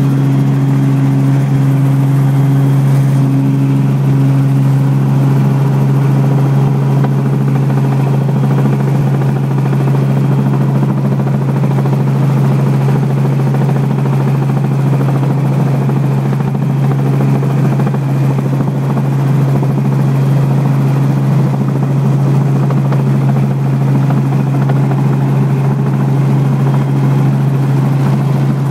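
Robinson R44 helicopter heard from inside the cabin during its descent to land: a loud, steady drone of the piston engine and rotors with a strong low hum that holds constant throughout.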